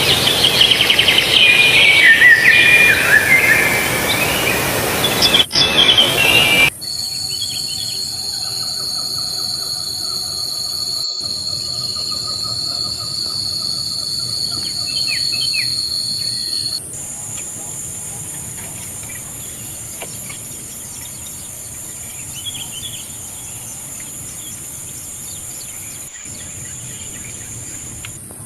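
Loud bird calls in falling phrases for the first several seconds. After an abrupt cut, a steady high insect trill takes over with faint bird chirps above it. Its lower tone stops about ten seconds later, leaving a thinner high trill.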